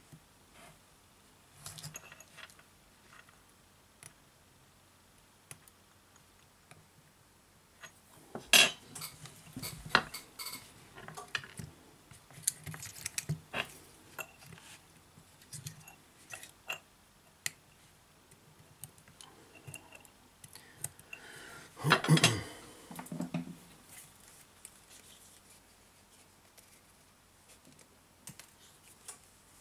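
Metal tweezers and small tools clicking and scraping against a phone's metal middle frame, in scattered taps with quiet gaps between. Louder clatters come about eight seconds in and again about twenty-two seconds in.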